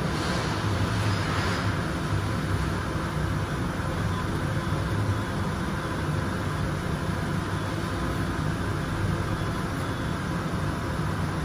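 Steady low drone with a hiss over it, unbroken and even, with no knocks, clicks or tool strikes in it.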